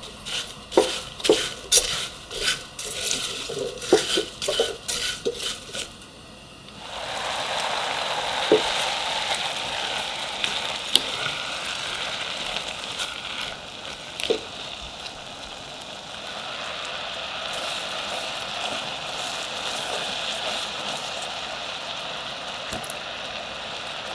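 A spatula stirring diced peach and sugar in a saucepan, with gritty scraping and clicks against the pot for about the first six seconds. Then the peaches simmer in their syrup with a steady bubbling sizzle, broken by a few knocks of the spatula on the pan.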